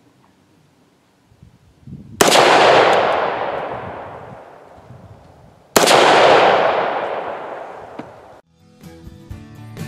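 Two rifle shots from a Ruger AR-556 firing .223 rounds, about three and a half seconds apart. Each sharp crack trails off in a long echo. Music starts near the end.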